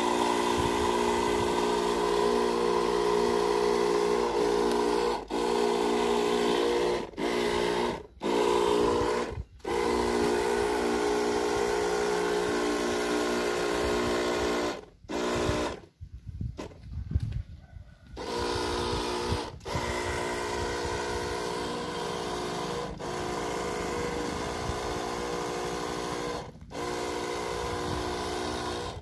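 Matrix 16-litre knapsack sprayer running as insecticide is sprayed from its wand onto a tree: a steady hum that breaks off briefly about eight times, with a ragged stretch of handling noise around the middle.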